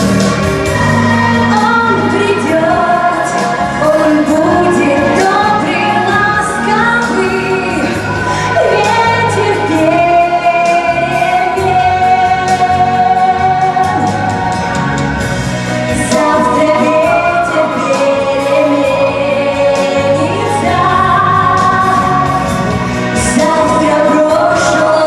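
A song: singing over an instrumental backing with a steady beat.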